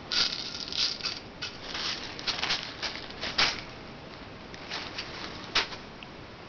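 Handling noise from a tin of Daisy .22 air-gun pellets and a plastic bag of airsoft BBs. A quick run of short rustling, rattling bursts fills the first three and a half seconds, and a few more come near the end, the sharpest about a second before the end.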